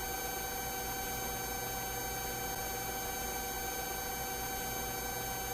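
Police helicopter cabin noise heard over the onboard audio: a steady hum with several high, steady whining tones.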